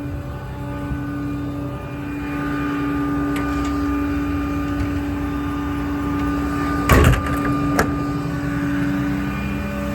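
Truck machinery running steadily with a constant hum over a low rumble, broken by two sharp knocks about seven and eight seconds in.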